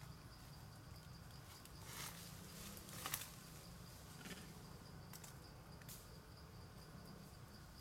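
Faint steady insect trilling with a quick regular pulse, over a low background rumble. A few soft clicks or rustles come between about two and six seconds in, the loudest about three seconds in.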